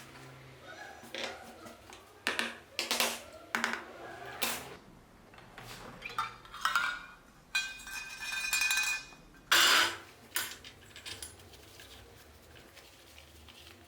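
Small metal parts clinking and knocking against each other and a hard work surface, with a short stretch of ringing, scraping metal near the middle and one loud knock just before the end.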